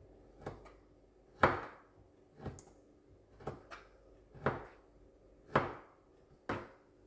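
Kitchen knife chopping Chinese sausage into small pieces on a plastic cutting board: sharp knocks of the blade hitting the board about once a second, a few in quick pairs.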